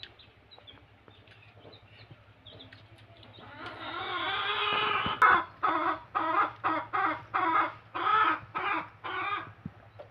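A chicken calling: a drawn-out note starting about three and a half seconds in, then a run of about ten short clucks at an even pace, stopping shortly before the end.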